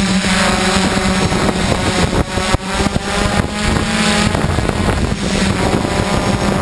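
DJI F550 hexacopter's motors and propellers humming steadily in flight, the pitch stepping up and down a few times as the motors change speed. Wind buffets the microphone throughout.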